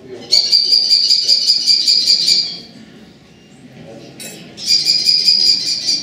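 American kestrel giving its shrill killy call: a rapid string of high-pitched notes lasting about two seconds, then a second, shorter string near the end.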